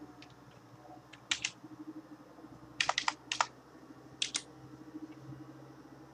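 Computer keyboard typing: short clusters of a few key clicks with pauses between them, over a faint steady low hum.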